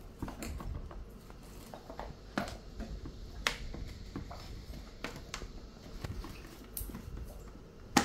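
Plastic housing of a steam iron being handled and pressed back together, with several sharp plastic clicks and knocks a second or so apart as the parts seat, the loudest near the end.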